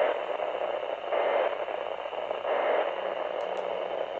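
Static and hiss from a weather radio receiver, swelling louder a few times.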